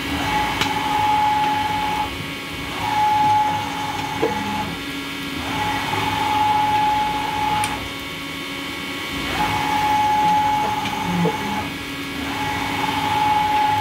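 Bridgeport Torq-Cut CNC milling machine's DC servo drive jogging the table along the Y axis: five runs of about two seconds each, each a steady whine, with short pauses between and a short knock near the end of two of the runs. A steady machine hum runs underneath.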